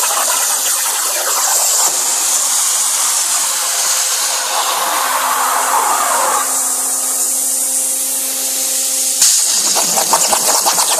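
Plasma cutter cutting on a CNC table: a loud, steady hiss of the arc and air with a faint low hum. About nine seconds in, a sharp click, and the sound turns rougher and crackling.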